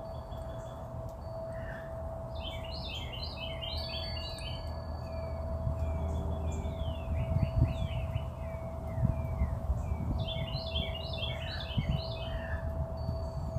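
Songbird singing: two bouts of rapid chirping notes, with a run of quick down-slurred whistles between them. A steady hum sits underneath, and a few low thumps come in the second half.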